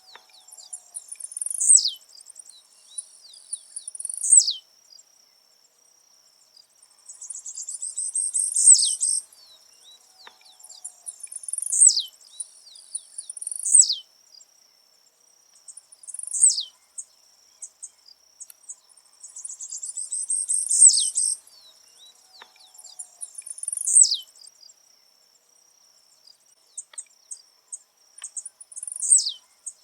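Blue-black grassquit (tiziu) singing again and again, a short, high, buzzy phrase ending in a quick downward sweep, every two to four seconds, over a faint steady high tone.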